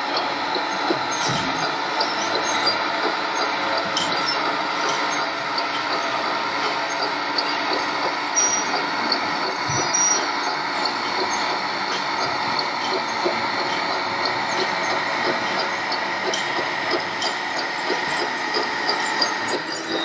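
Electronic sound modules of radio-controlled model trucks and construction machines playing steady diesel engine sounds, with short high-pitched beeps recurring every second or so.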